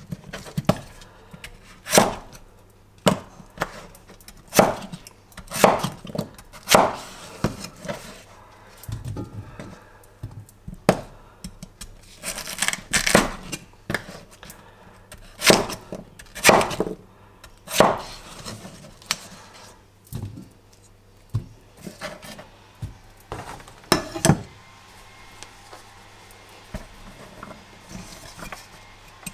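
Almazan Kitchen Serbian chef's knife chopping a potato on a wooden chopping board: irregular knocks of the blade striking the board, growing sparser near the end.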